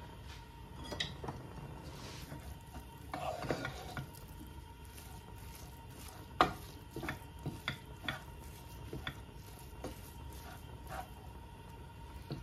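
Wooden spoon stirring and breaking up raw minced lamb with ghee in a nonstick pan, with scattered knocks and scrapes of the spoon against the pan, the loudest about six and a half seconds in.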